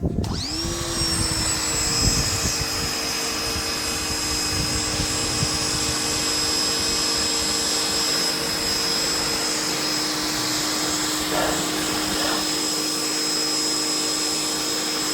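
Ryobi 1900 PSI electric pressure washer's motor and pump spinning up as the trigger is squeezed, then running with a steady whine over the hiss of the water jet.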